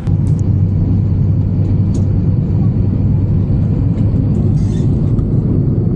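Steady low rumble of an Airbus A350 airliner heard from inside the cabin: engine and airflow noise with no change in pitch.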